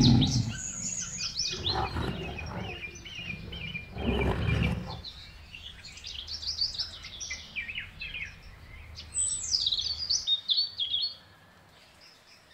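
AI-generated soundboard effects: birds chirping and tweeting in many quick high calls, after the tail of a lion's roar at the start, with a brief louder low burst about four seconds in. The chirping dies away about a second before the end.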